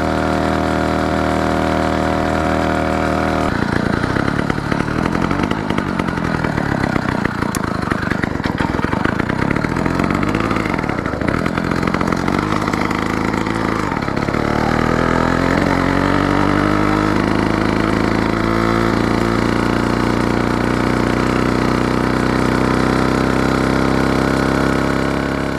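Two-stroke engine of a motorized bicycle running under way. It holds an even note at first; a few seconds in it turns rough and uneven, wavering for about ten seconds, then rises and settles into a steadier, higher note. The engine is new and still being broken in, and the owner says it still doesn't run very well.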